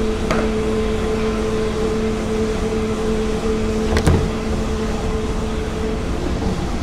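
Steady machine-shop hum with a low tone and a second tone an octave above; the tones fade out near the end. Two sharp clicks cut through it, one just after the start and a louder one about four seconds in.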